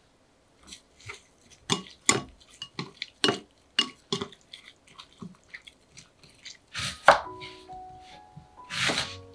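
Chopsticks clicking and tapping against a glass bowl in a quick irregular run while tossing sliced cucumber and wakame. About seven seconds in, soft piano music begins, with two louder rustling noises near the end.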